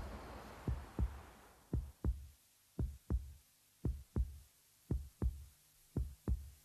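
Heartbeat sound effect: pairs of low thumps (lub-dub) repeating slowly, about once a second. A hiss fades out over the first two seconds, and the beat stops just before the end.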